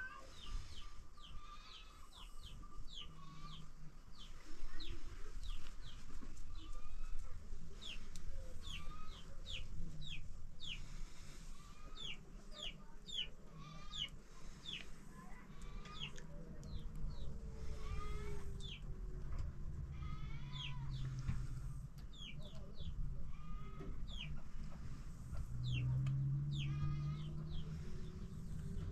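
Chickens clucking and chirping: many short, high, falling chirps in quick runs.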